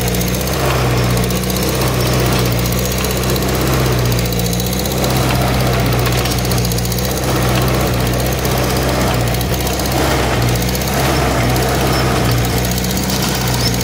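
Farm tractor engine running steadily under load as it pulls a plow through paddock ground.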